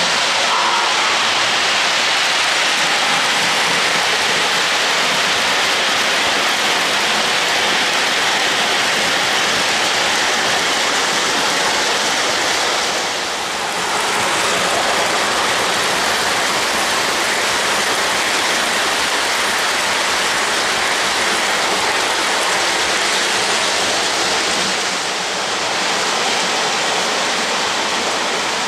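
Three-rail O-gauge model trains running on the layout track: a steady rushing noise that dips briefly twice.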